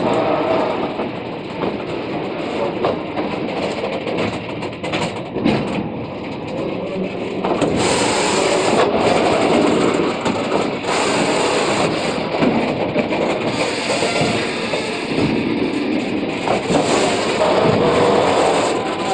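Covered goods wagons of a loaded freight train rolling slowly past at close range: a steady rumble of wheels on rail with repeated knocks and clacks, getting louder about eight seconds in.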